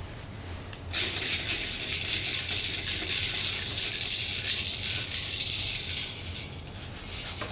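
Plastic balls rattling inside the clear dome toy on a baby bouncer's tray, a dense, continuous rattle that starts about a second in and dies away about five seconds later.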